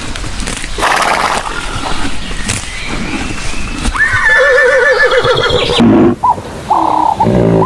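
Horse neighing: after a noisy stretch, a long whinny with a quavering, wavering pitch about four seconds in. Near the end, after a break, a different series of short arched calls begins.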